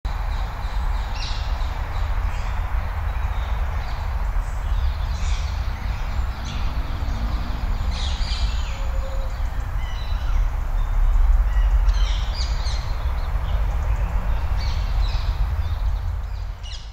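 Birds calling, in scattered short calls, over a steady low rumble of outdoor ambience; it all fades out near the end.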